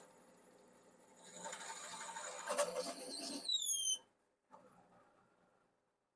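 Power drill running a bi-metal hole saw, a steady high whine that gets louder about two and a half seconds in. The motor winds down in pitch as the trigger is let go at about four seconds, and it is then nearly silent.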